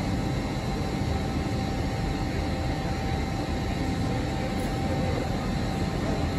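LNER Azuma high-speed train standing at the platform with its onboard equipment running: a steady low rumbling hum with a faint constant high whine over it.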